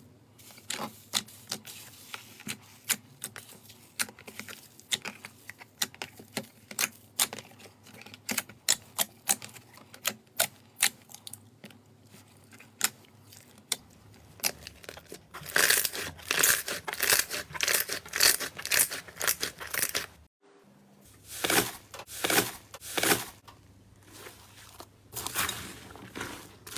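Slime being squeezed and pressed by hand, giving a run of small popping clicks and crackles. About halfway through the crackling turns louder and denser, then after a brief gap it comes back in short bursts.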